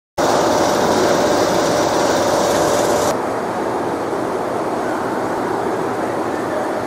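Steady mechanical hum and rumble of workshop machinery. It is louder, with a higher hiss, for the first three seconds, then drops suddenly to a lower, even rumble.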